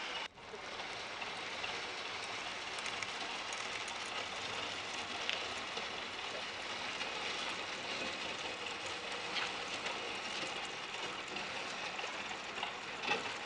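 Steady crackling, rumbling noise of a houseboat on a wheeled trailer being hauled slowly over a frozen gravel shore, with a few faint knocks.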